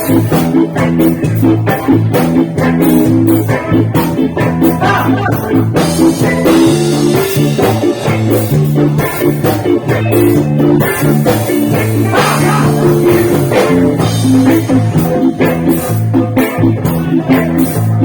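Loud music with electric guitar, bass and drums playing steadily, the bass moving between held notes under a regular drum beat.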